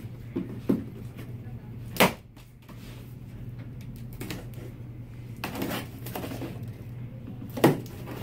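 Promotional items and packaging being handled: a few sharp knocks and clicks, the loudest about two seconds in and near the end, with a stretch of rustling in between, over a steady low hum.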